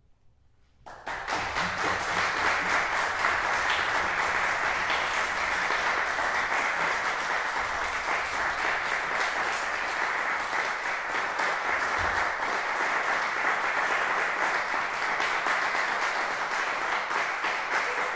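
Audience applauding. It breaks out about a second in after a brief near-silence and then holds steady.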